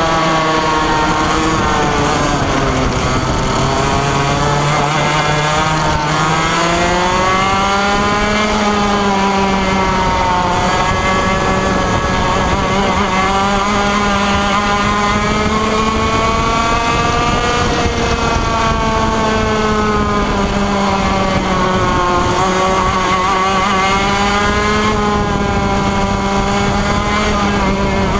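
Single-cylinder 125cc two-stroke TaG kart engine, recorded onboard, running at racing revs. Its note drops several times as the driver lifts for corners and climbs again on the straights.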